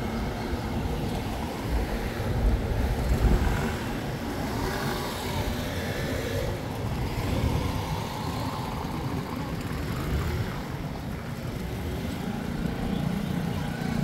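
Road traffic: cars running by on a nearby street, with one louder pass about two to three seconds in.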